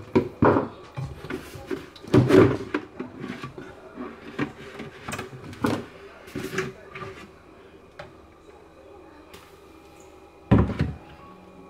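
Irregular knocks and clunks of hands working on fittings inside a washbasin cabinet, with a louder thud near the end as a plastic bucket is set down under the drain trap.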